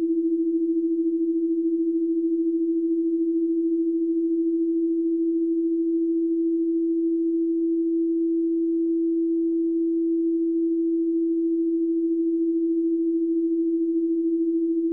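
A single steady electronic sine-wave tone, low in pitch like a held hum, without change. It is the background tone of a subliminal audio track.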